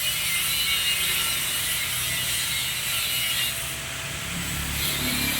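Steady mechanical clattering and rattling.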